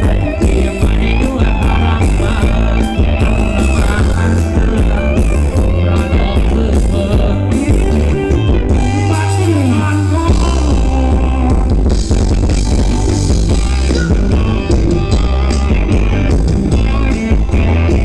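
Live band playing Thai ramwong dance music over a loud sound system, led by guitar with a heavy bass line. About halfway through there is a falling pitch slide over a held low note.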